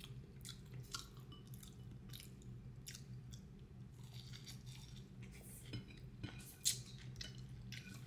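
A person eating close to the microphone: chewing with irregular wet smacks and clicks, one sharper smack about two-thirds of the way in, over a faint steady low hum.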